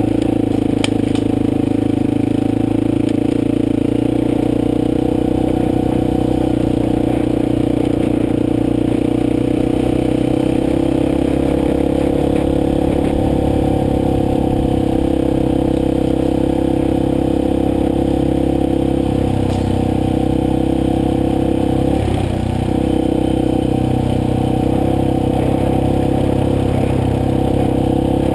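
Motorcycle engine running at a steady, even pace while riding. The engine note dips briefly about three-quarters of the way through, then picks up again.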